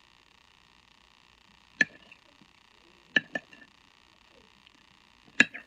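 Metal fork clinking against a plate while eating: four sharp clinks spread over the few seconds, each with a short ring.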